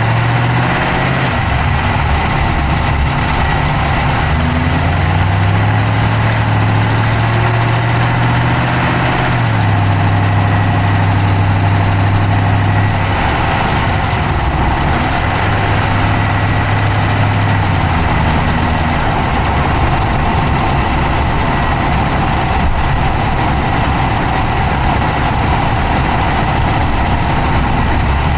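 Dodge Charger's Hemi V8 idling, heard close up from the passenger side of the engine bay, with a fast clicking running through the engine sound. The idle pitch drifts up and down slightly.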